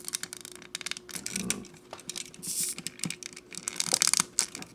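Small plastic model-kit parts clicking and tapping against each other as they are handled and fitted together, in a run of light, irregular clicks.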